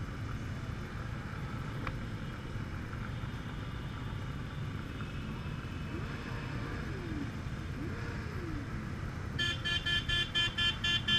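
Steady riding noise aboard a Honda Gold Wing 1800: its flat-six engine and the rush of air at cruising speed, with other motorcycles around. Near the end, a rapid series of high-pitched toots, about five a second, comes in over it.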